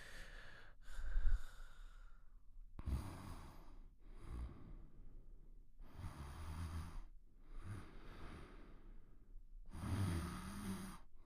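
Soft snoring: slow, regular breaths in and out, several with a low rattle.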